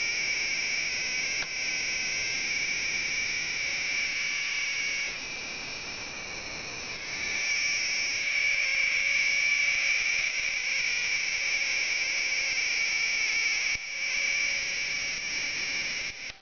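Steady high-pitched electronic whine over a hiss from a running oscilloscope, dipping in level from about five to seven seconds in and briefly again near the end.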